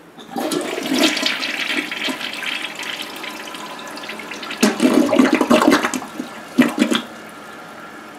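Toilet flushing: water rushes into the bowl and swirls down the drain, with two louder surges in the second half, then a steadier, quieter run of water.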